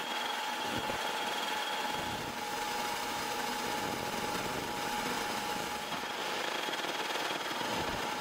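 EM Smart Basic 1 20 W galvo fibre laser engraving a logo into a metal ruler: a steady hiss with a constant mid-pitched tone running through it.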